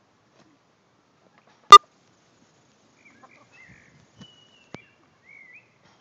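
A single sharp, loud tap about two seconds in, then a few faint high chirps and soft calls from hens near the end.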